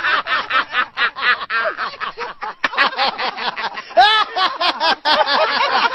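Men laughing hard together in quick, repeated bursts, with a louder peak of laughter about four seconds in.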